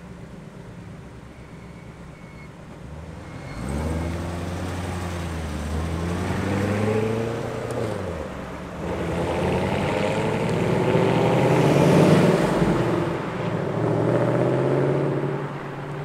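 V8 sports cars, a Chevrolet Corvette C7 Grand Sport and a Ford Mustang Bullitt, rolling past at a low burble, then revving and accelerating away from about four seconds in, loudest around twelve seconds.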